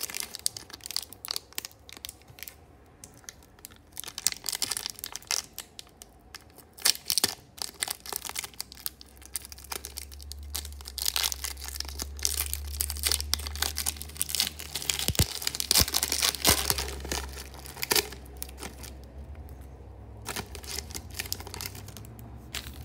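Foil wrapper of an Upper Deck SP hockey card pack being torn open and crinkled by hand: irregular crackling tears and crinkles, densest through the middle and thinning out near the end.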